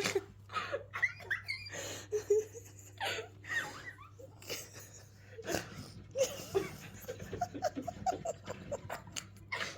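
Stifled giggling and breathy, suppressed laughter in short, irregular bursts, over a faint steady low hum.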